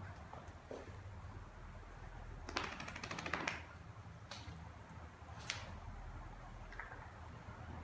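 Claws of two playing puppies clicking and scrabbling on a hard tiled floor: a quick flurry of rapid clicks in the middle, then a few single clicks, over a low steady hum.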